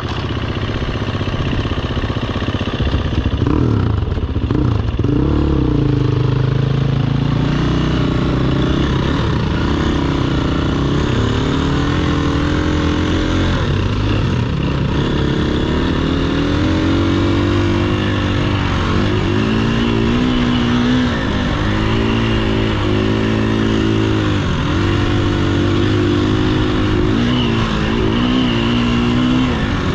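Off-road motorcycle engine running under constantly changing throttle on a dirt trail, its pitch rising and falling, with a quick series of climbs and drops in the second half.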